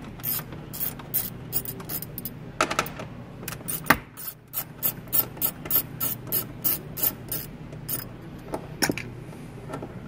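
Socket ratchet clicking in quick runs of about three clicks a second as it backs out 10 mm hex nuts, with a louder knock about four seconds in.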